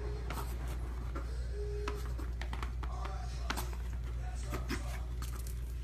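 A small dog pawing and chewing a paper tissue on a rug: scattered scratches, rustles and clicks over a steady low hum.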